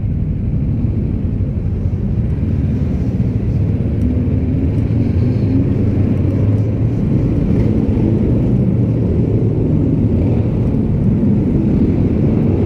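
Motorcycle engine running steadily at low speed in town traffic, with a constant low rumble of road and wind noise.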